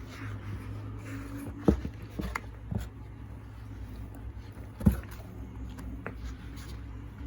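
Comic books being handled and set down: two sharp taps, a little after a second and a half and again about five seconds in, with a few lighter ticks between, over a steady low hum.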